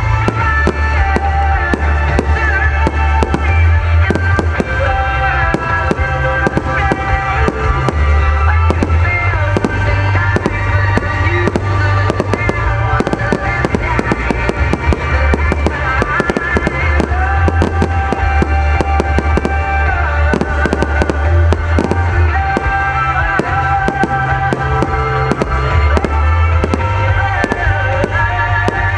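Aerial firework shells bursting and crackling, many sharp bangs in quick succession, over loud music with a heavy bass line.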